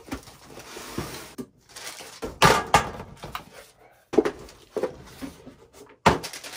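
Handling noises as a Milwaukee rotary hammer drill is taken up and readied: several sharp clunks and clicks with rustling between. The loudest knocks come about two and a half seconds in, just after four seconds, and near the end. The drill is not running.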